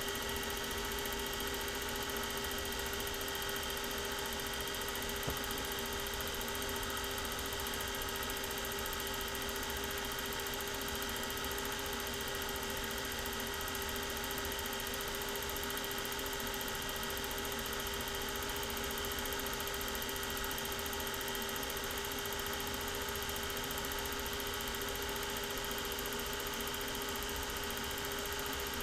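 Film projector running: a steady hum with a few fixed tones over an even hiss.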